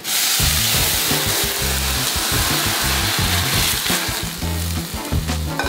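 Food frying in a hot pan on a gas hob: a loud sizzle that starts suddenly and eases after about four seconds. Background music with a steady bass line runs underneath.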